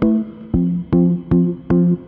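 Background music of short, sharply struck notes on a steady beat, about two and a half a second.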